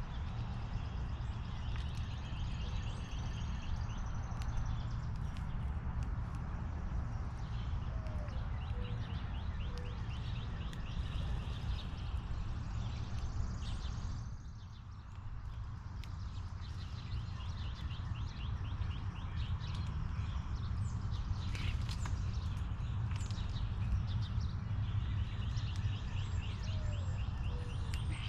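Small songbirds chirping and trilling repeatedly over a steady low rumble.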